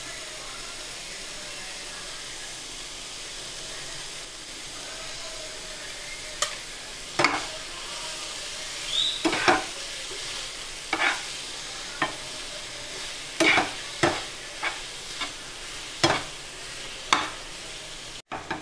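Grated paneer and sautéed onion, tomato and carrot sizzling steadily in a non-stick frying pan. From about six seconds in, a metal spatula stirs and scrapes through it in separate strokes, roughly one a second.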